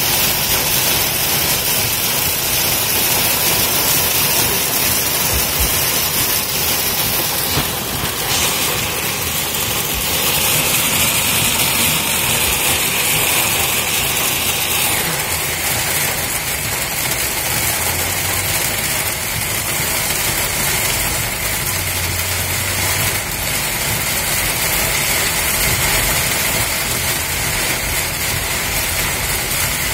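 Torrential rain hitting a car's roof and windshield, heard inside the cabin over tyre and road noise on a waterlogged highway: a steady, dense hiss.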